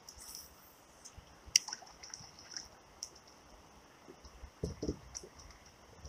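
Faint scattered clicks and small knocks from a spinning rod and reel being cast and worked from a kayak, with one sharper click about one and a half seconds in and a couple of dull knocks near the end.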